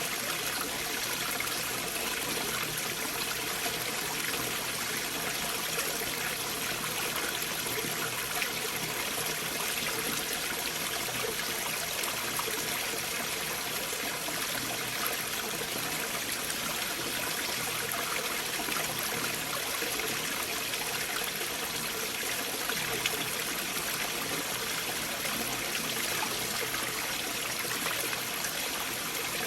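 Stream water flowing and trickling among large boulders: a steady, even rush with small splashes now and then.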